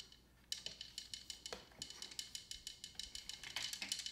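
Plastic gears of a Downspin game being turned with its key, giving a fast run of light clicks that starts about half a second in.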